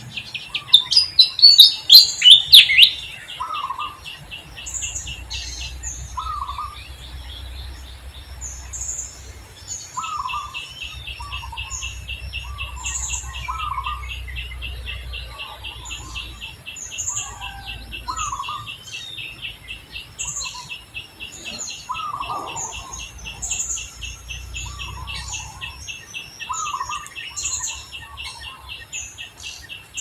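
Birds chirping outdoors, with short calls repeating over and over and a steady fast trill running underneath. A burst of loud, high chirps comes about a second in.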